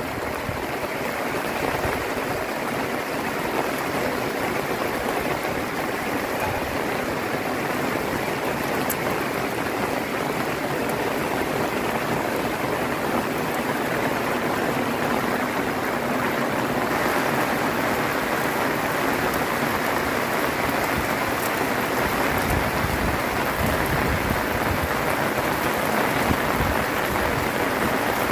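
Heavy rain falling steadily as an even, dense hiss, growing a little louder in the second half.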